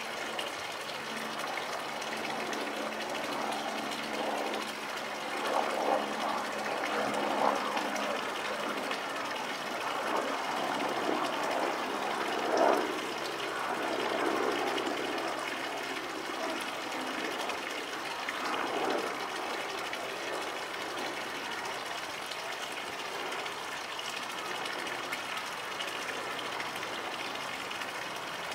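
Steady rushing noise of running water with a faint low hum underneath, and a few louder, irregular swells between about five and nineteen seconds in.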